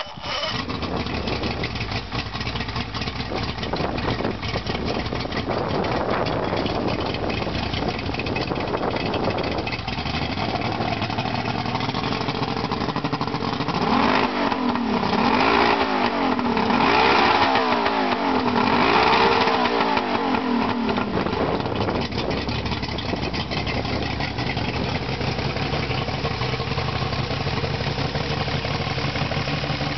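Two-stroke outboard motor running out of the water on a garden-hose flush attachment, idling steadily, then revved up and down several times for about seven seconds in the middle before settling back to idle.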